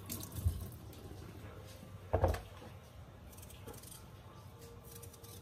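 Kitchen handling sounds while peeling potatoes: two dull knocks, the louder one about two seconds in, as potatoes are handled in a plastic bowl, with faint light clicks and scrapes in between.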